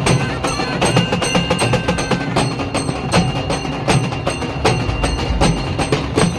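A group of halgi frame drums, played with sticks, beating a fast, steady rhythm of sharp strokes.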